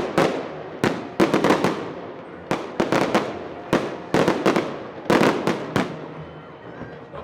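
Fireworks salute: clusters of sharp bangs going off in quick succession, each trailing off in echo, thinning out near the end.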